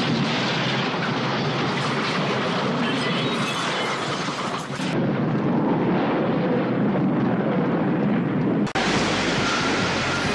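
Dense, continuous rumble and clatter of cars rolling over and crashing. The sound changes abruptly about five seconds in and again near nine seconds, where the footage cuts.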